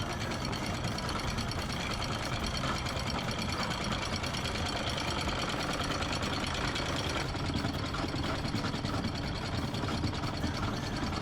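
A boat's engine running steadily, with a slight change in its sound about seven seconds in.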